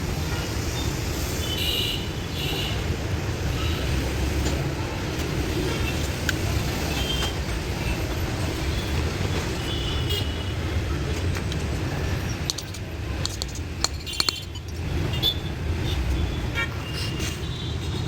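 Steady rumble of passing road traffic with a few short horn toots, and a run of sharp clicks and taps near the end.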